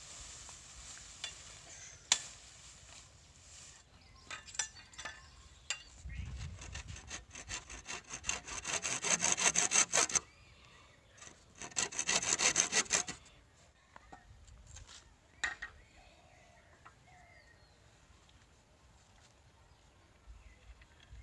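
Hand saw cutting across a green bamboo pole in two bouts of rapid back-and-forth rasping strokes, the second one shorter. A few sharp knocks come before the sawing.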